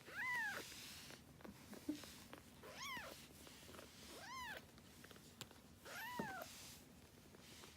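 A young kitten meowing four times, each meow a short high call that rises and then falls in pitch, spaced a second or two apart.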